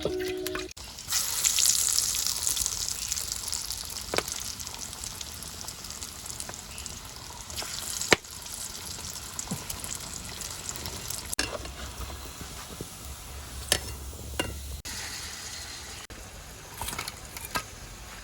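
Lentil fritters (wadei) deep-frying in hot oil: a steady sizzle that swells suddenly about a second in, with scattered sharp pops.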